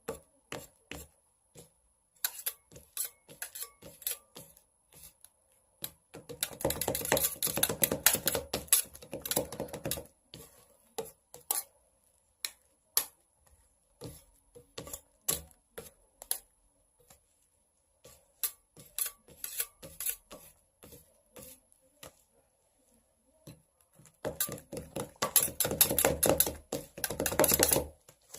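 Close-miked eating sounds: scattered sharp clicks and taps, with two long runs of dense crunching, about six seconds in and again near the end.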